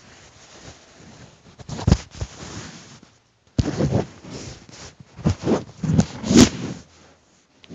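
Handling noise from a handheld camera being moved about close to the microphone: irregular rustling and bumps, with a few sharper knocks about two, three and a half, and six seconds in.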